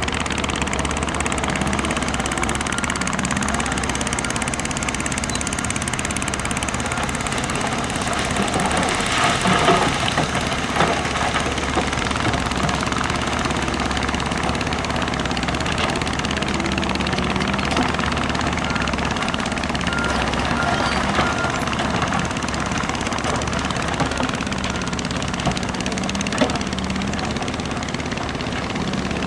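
Heavy diesel earthmoving machinery running steadily, louder for a moment about nine seconds in.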